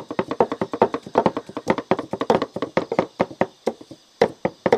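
Kitchen knife rapidly chopping spice ingredients on a chopping board, about six quick strokes a second, with a brief pause about four seconds in.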